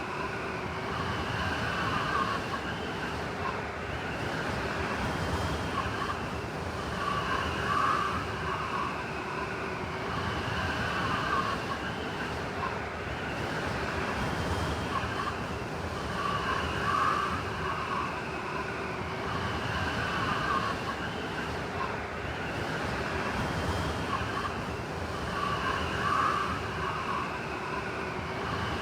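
Blizzard wind: a steady rush of wind noise that swells into gusts and eases off every few seconds, with a wavering whistle in the gusts.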